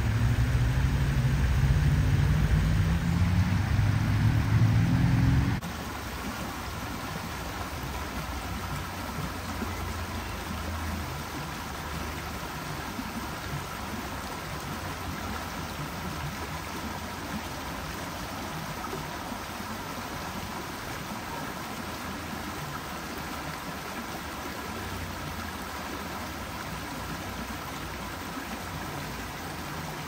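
Steady rushing of the Schiessentümpel cascade's water over the rocks. For the first five seconds or so a louder engine sound rises in pitch over it, then cuts off suddenly.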